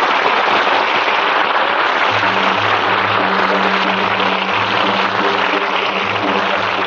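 Audience applauding, with music starting under the applause about two seconds in.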